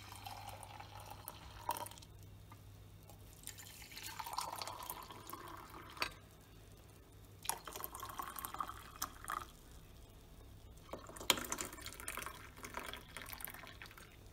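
Tea pouring from a ceramic teapot into mugs: a splashing trickle in several spells as each mug fills, with a few light knocks in between.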